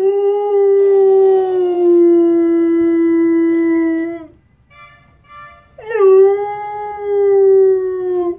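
Siberian husky howling: two long howls, each held for a few seconds and sinking slightly in pitch, with a pause of about a second and a half between them. In the pause, a few short pitched toots sound.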